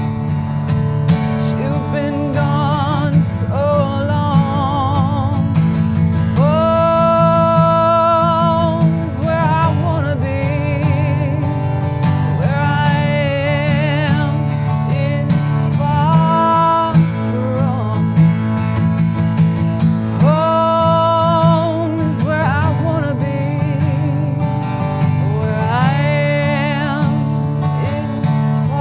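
A woman singing a country-style song with vibrato on long held notes, accompanied by acoustic guitar played in a steady rhythm.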